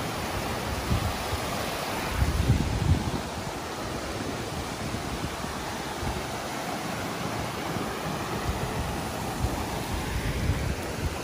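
Mountain river rushing over flat rocks and small cascades, a steady rush of water. Low gusts of wind rumble on the microphone, strongest about two seconds in.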